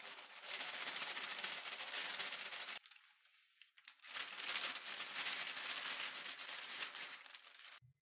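Dense rattling, scraping noise of kitchen utensils being worked, in two stretches of about three and four seconds with a short, quieter pause between them.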